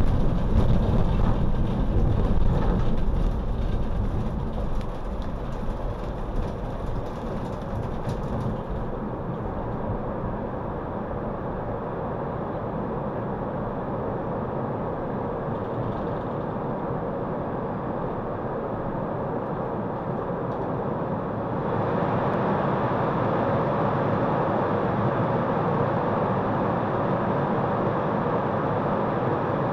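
Steady running noise of a tram heard from on board, with the hiss of heavy rain for the first eight seconds or so. The sound changes abruptly about eight and twenty-two seconds in.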